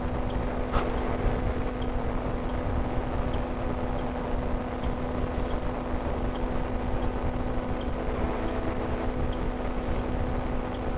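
Ultralight hang-glider trike engine droning steadily in cruise flight, heard on board, with wind noise on the microphone.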